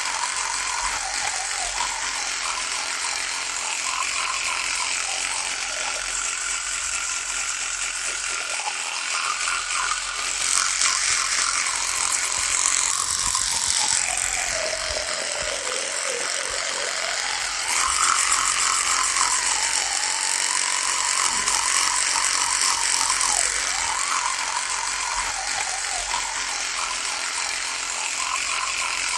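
Electric toothbrush running with a continuous buzz. Its pitch wavers throughout and drops lower for a few seconds about halfway through, then rises back.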